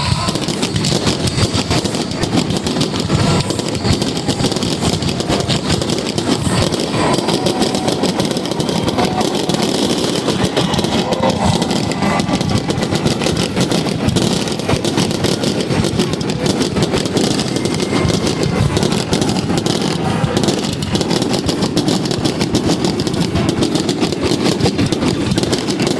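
Fireworks crackling and popping in a dense, unbroken stream of rapid small bangs, steady in loudness throughout.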